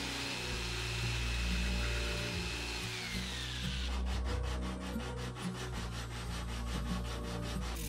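Electric jigsaw cutting a rounded corner in a pine board, its motor whine falling away as it stops about four seconds in. Then hand sanding of the freshly cut corner with sandpaper: quick, regular back-and-forth scratching strokes, several a second.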